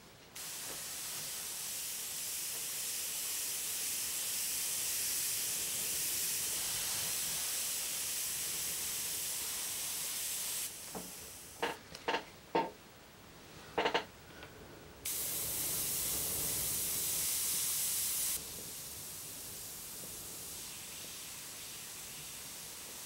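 Airbrush hissing as it sprays Indian ink onto paper: a steady hiss for about ten seconds, then a pause with a few sharp clicks, then another burst of spraying. From about 18 seconds in the hiss drops to a quieter, steady level, with the air pressure turned down.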